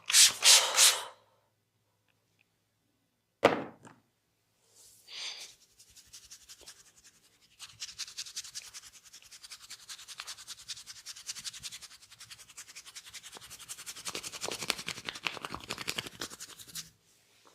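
A barber's hands working on a client's head and skin in a massage. A brisk rub opens it, a single sharp snap comes about three seconds later, and then for most of the rest there is a long run of fast, fine scratching, like fingers raking through hair and over the scalp.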